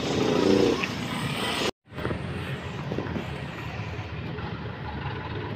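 Steady street noise of vehicle engines and traffic, broken by a brief drop to silence about two seconds in.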